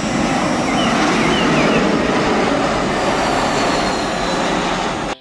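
Loud, steady jet noise from an Airbus A320-family airliner on landing approach, with a faint falling whine near the end as it touches down.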